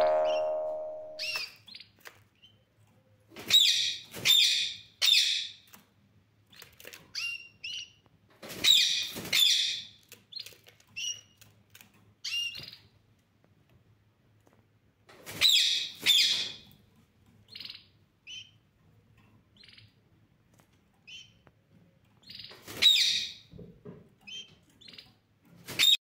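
Caged aviary birds giving short, high chirping calls, mostly in clusters of two or three with pauses between and scattered single chirps. A ringing tone dies away over the first second and a half.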